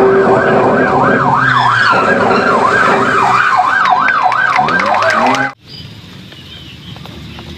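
Toy police car's electronic siren, a fast wail sweeping up and down in pitch over and over, cutting off suddenly about five and a half seconds in.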